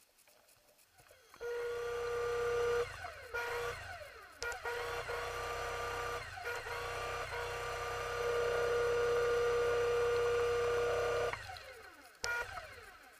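Diver propulsion vehicle (underwater scooter) motor running underwater: a steady electric whine with a low hum that starts suddenly about a second and a half in, dips and surges a few times, and cuts off shortly before the end.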